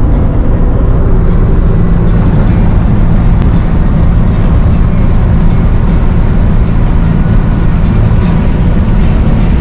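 Truck engine and road noise heard inside the cab at highway speed: a loud, steady rumble.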